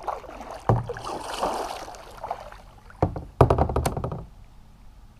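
Water splashing beside a plastic kayak, then a quick run of sharp knocks against the kayak hull about three seconds in.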